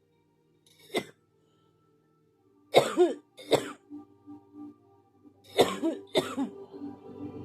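A person in a coughing fit: five harsh coughs, one about a second in, then two pairs of coughs a few seconds apart.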